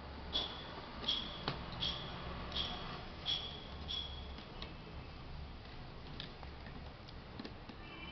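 Small sharp clicks from hand work on a laptop being taken apart. About seven come evenly, roughly one every three-quarters of a second, then lighter scattered clicks and taps follow, over a steady low hum.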